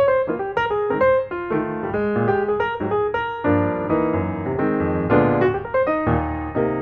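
Background piano music: a flowing melody of quick notes over sustained chords.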